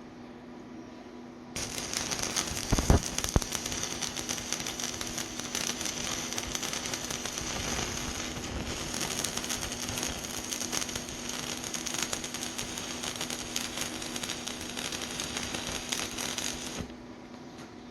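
Stick-welding arc from a 3/32" electrode at 75 amps on rusted steel pipe: the arc strikes about a second and a half in with a couple of sharp pops, then crackles and sizzles steadily for about fifteen seconds before breaking off near the end.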